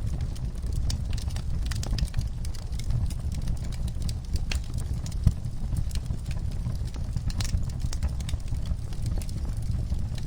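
Wood fire burning in a fireplace: a steady low rumble of flames with irregular sharp crackles and pops of the burning logs, one louder pop about halfway through.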